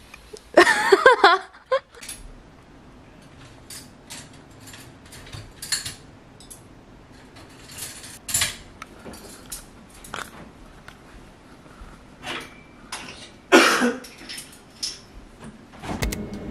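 Scattered light clicks and clinks of utensils and dishes at a meal. A short, high, wavering vocal sound comes about a second in, and a louder burst comes near the end.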